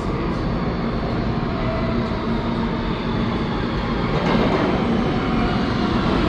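An R160 subway train with Siemens propulsion approaching through the tunnel: a steady rumble of wheels and motors that grows louder about four seconds in.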